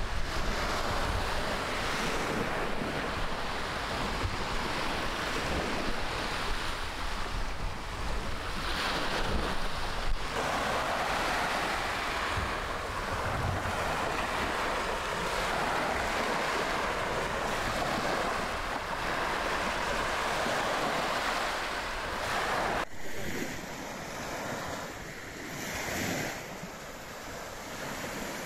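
Sea surf breaking and washing up a sandy beach, with wind buffeting the microphone. Near the end there is an abrupt change to a quieter stretch, followed by one more swell of surf.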